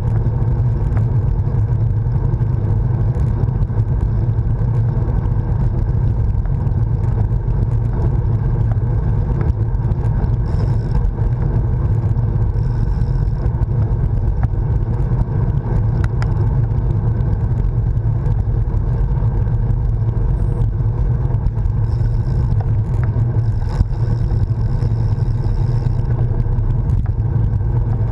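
Wind buffeting the microphone of a handlebar-mounted GoPro on a moving road bike, mixed with tyre and road noise: a steady low rumble.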